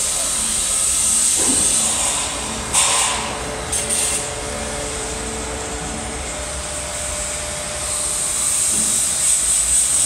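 Steady construction-site and street noise: a continuous engine rumble with a hiss over it, broken by two short louder bursts about three and four seconds in.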